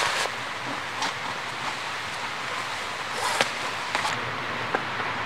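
Camping gear being handled and packed: fabric rustling with a few sharp clicks and knocks, over a steady hiss of background noise.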